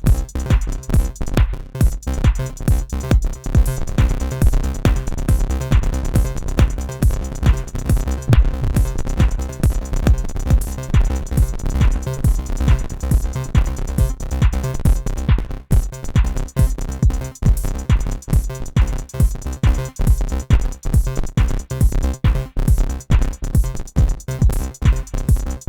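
Electronic music jam: a drum machine beat sequenced on an Akai MPC One sampler with a Korg microKorg synthesizer, a steady beat over a heavy sustained bass line.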